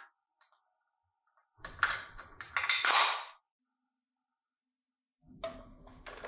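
Hard plastic knocks and rattles of a Dyson cordless stick vacuum and its floor dock being handled, a cluster of sharp clacks, then, near the end, a softer clunk as the vacuum is slotted into the dock.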